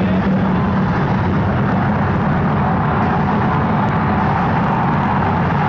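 Arena crowd roaring at the opening of a rock concert, loud and steady, recorded close enough to sound overloaded and distorted.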